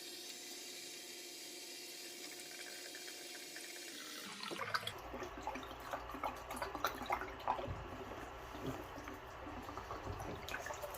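Water draining out of the opened water heater plumbing: a steady hissing run of water, then from about four seconds in a lower, uneven splashing with scattered knocks and clicks.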